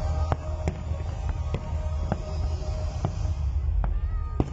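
Aerial fireworks shells bursting: about ten sharp bangs at irregular intervals over a low rumble.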